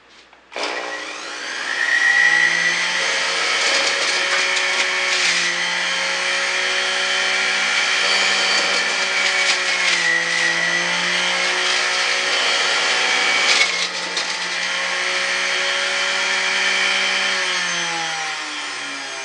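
Electric juicer motor starting up, spinning up to speed with a rising whine, then running steadily while greens are pushed down the feed chute, its pitch sagging briefly under load twice; it winds down near the end.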